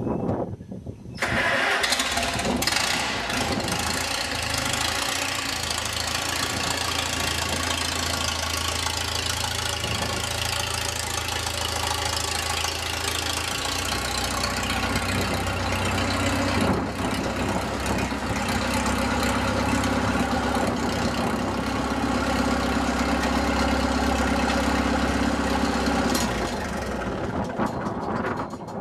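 A 1949 Farmall M tractor's four-cylinder engine with a straight chrome exhaust stack starts about a second in and runs as the tractor is driven. Its speed changes partway through, and it shuts off near the end.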